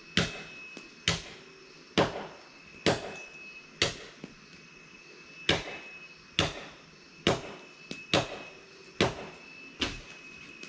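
A series of sharp knocks struck by hand, roughly one a second, each ringing out briefly. A faint steady high-pitched tone runs underneath.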